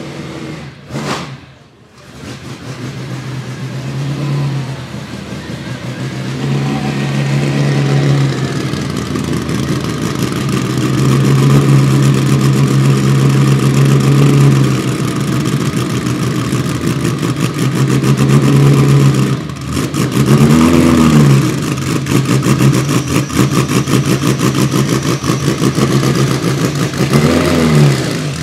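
Ferrari 250 GT SWB "Breadvan"'s three-litre V12 idling with a steady note that grows louder over the first ten seconds. The driver blips the throttle twice, the revs rising and falling about two-thirds of the way through and again near the end.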